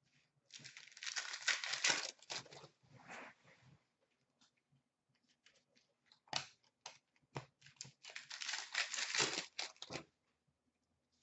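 2011-12 Panini Contenders hockey card pack wrappers being torn open and crinkled by hand, in two stretches: about half a second in and again around eight seconds in. Between them come a few light clicks as the cards are handled.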